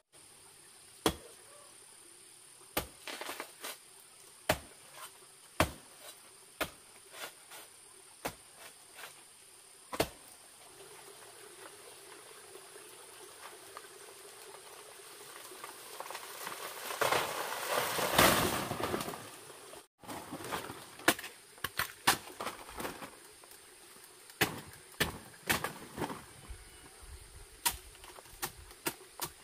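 Machete chopping into a banana plant's soft trunk, sharp chops every second or so. About 17 seconds in comes a long rustling crash as the plant and its leaves come down, and afterwards the chopping resumes. Insects buzz steadily in the background.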